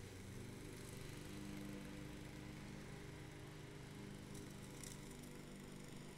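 A steady low engine hum, with faint hiss and a couple of faint high ticks near the five-second mark.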